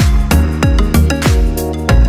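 Background music with a steady beat and bass, about three beats a second.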